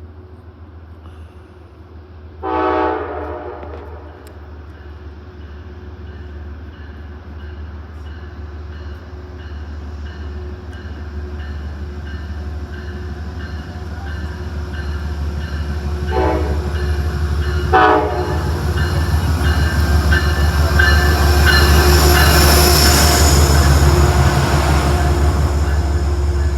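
Metro-North commuter train approaching, its low engine rumble growing steadily louder, sounding its horn in one blast of over a second near the start and two short blasts about a second and a half apart later on. A high squeal builds over the rumble near the end as the train draws close.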